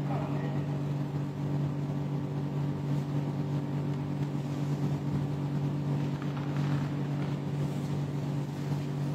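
A steady low hum made of several held tones, unchanging in pitch and level.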